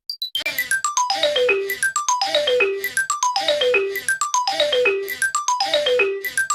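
Electronic ringtone-like jingle: a quick run of falling bright notes that lands on a short held low note, repeated over and over about once a second.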